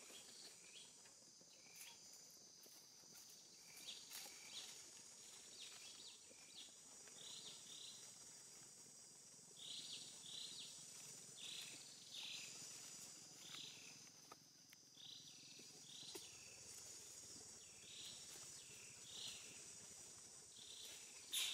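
Faint, high-pitched short cries of a newborn baby monkey, repeated about every second and often in pairs, over a steady high drone. A sharp click comes near the end.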